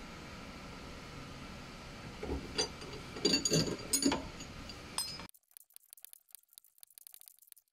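Ratchet wrench and socket on a sway bar link nut: a few sharp metal clinks of the tool over a steady hiss between about two and five seconds in. After that the sound drops abruptly to faint, rapid ticking.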